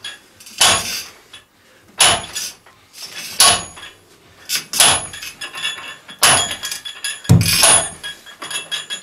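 Sledgehammer blows on a metal well pipe being driven into the ground by hand, about six sharp metallic clanks roughly a second and a half apart, each ringing briefly, with one heavier thud near the end. Between blows the pipe is turned with a wrench to drive the well point down toward water. The room's concrete walls add echo.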